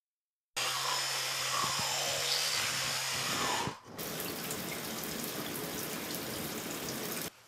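Shower head spraying water onto tiles: a steady hiss that starts abruptly about half a second in, with a low steady hum under the first few seconds. The hiss dips briefly midway and cuts off sharply just before the end.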